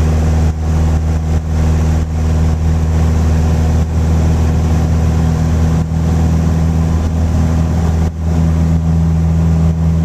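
Piper Warrior III's four-cylinder Lycoming engine and propeller at full takeoff power during the takeoff roll, a steady drone heard from inside the cabin.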